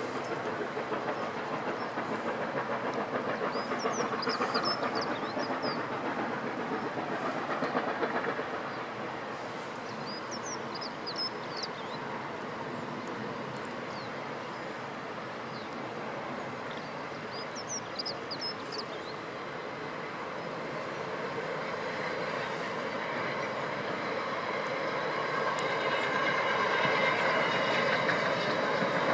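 Steam locomotive hauling a train along the valley, heard from a distance as a steady rush of exhaust and running noise. It grows louder in the last few seconds as a high wheel squeal joins in.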